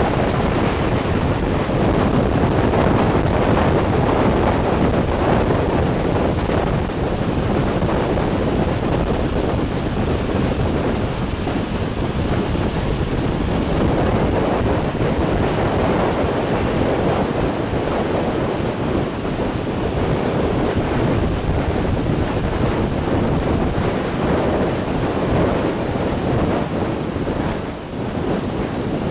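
Heavy wind noise from a microphone held out of the window of a moving passenger train, mixed with the train's running noise: a steady rushing that dips briefly near the end.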